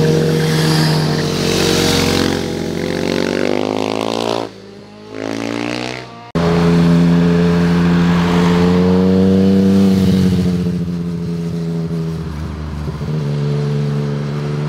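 Motorcycle engines accelerating through a tight bend, their pitch rising, then falling away about four seconds in. An abrupt cut about six seconds in brings back loud, steadier engine sound from a car and a motorcycle passing close.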